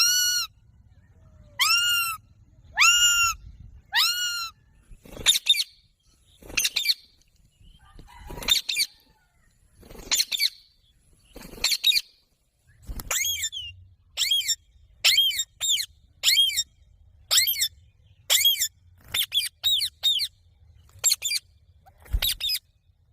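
Green parrot calling: a series of short, harsh screeches with a rising-then-falling pitch. They come about once a second at first and closer together in the second half.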